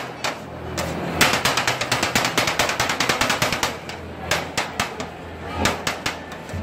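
Two steel kottu blades rapidly striking and scraping a metal griddle as kottu roti is chopped, a fast metallic clatter of many strikes a second. It is densest and loudest from about a second in, then thins to scattered strikes after about four seconds.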